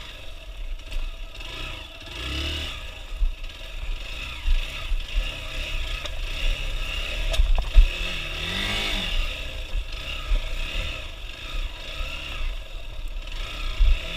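Hero XPulse 200 motorcycle ridden off-road, its engine revving up and down, with clattering and scraping knocks from the bike over rough ground. The revs swing sharply up and down about eight seconds in.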